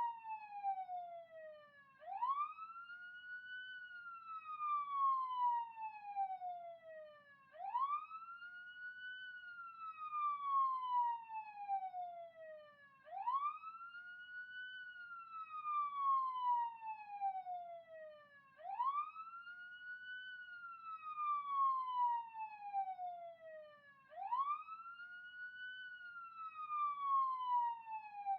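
Police siren wailing: in each cycle the pitch climbs quickly, then falls slowly, and the cycle repeats about every five and a half seconds. It is loudest near the top of each rise.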